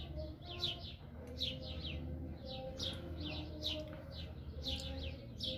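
Small birds chirping: short, high, downward-sliding chirps repeated in quick runs of two or three throughout, over a low steady hum.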